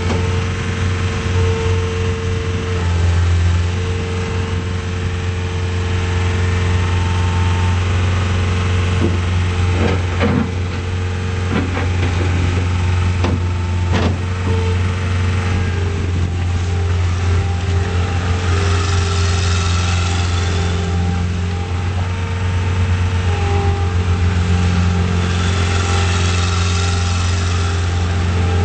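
A John Deere 318D skid steer's diesel engine running steadily, with a few sharp knocks about a third of the way through and two stretches of louder high-pitched noise in the second half.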